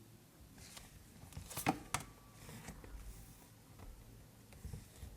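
Tarot cards being handled: soft rustling and a few sharp card snaps, the loudest two about two seconds in.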